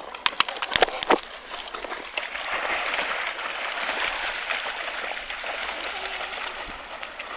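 Water splashing and sloshing in a steady rush, after a few sharp clicks in the first second.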